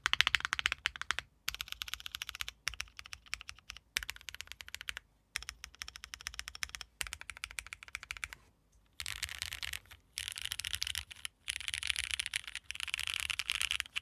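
Typing on a PLX 60% mechanical keyboard with lubed, filmed Cherry MX Black linear switches: quick runs of keystrokes in bursts of a second or two, separated by brief pauses.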